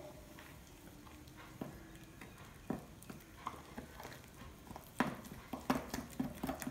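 A spoon stirring a thick spice-and-gram-flour marinade in a glass bowl: scattered soft taps and clinks of the spoon against the glass, coming more often in the second half.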